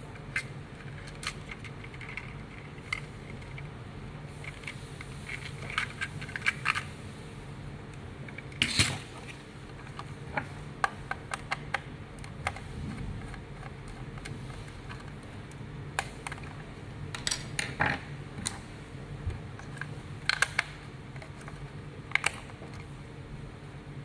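Hard plastic parts of a remote-control toy shark and its remote being handled: scattered clicks, taps and small rattles, a few in quick clusters, with a slightly longer scrape about nine seconds in. Near the end, clicks as a AAA battery is fitted into the remote's battery compartment.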